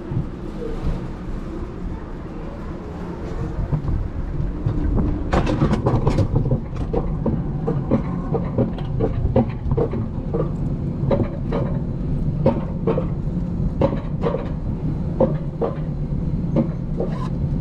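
Alpine coaster sled rolling along its steel tube track with a steady low rumble. About five seconds in, sharp regular clicks start at roughly two a second and keep on.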